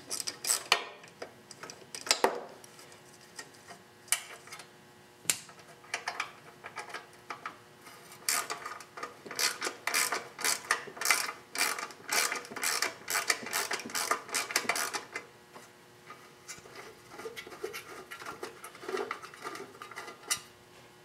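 Socket ratchet wrench clicking as bolts on a lawn mower engine's shroud are turned out: scattered clicks at first, then a long run of rapid clicks in the middle, with a few more short runs near the end.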